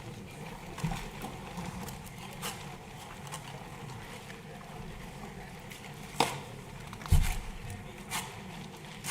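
Steady low background noise of a large assembly hall, broken by a few sharp knocks and clicks. The loudest come about six and seven seconds in.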